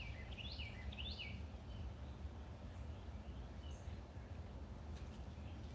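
Songbirds chirping outdoors: a quick run of short chirps that each fall in pitch in the first second and a half, then a single faint chirp, over a low steady background rumble.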